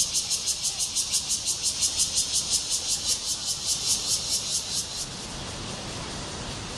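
Cicadas singing in the park trees: a loud, high, rhythmic pulsing at about six pulses a second that cuts off abruptly about five seconds in, leaving a steady hiss.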